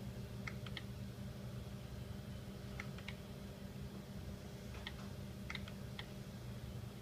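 Light, sharp clicks, scattered in pairs and small clusters, over a steady low hum.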